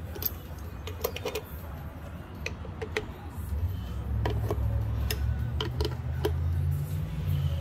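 Scattered light metallic clicks and ticks as steel bolts are handled and set into the bolt holes of a water pump housing, about a dozen in all. A low rumble underneath grows louder about four seconds in.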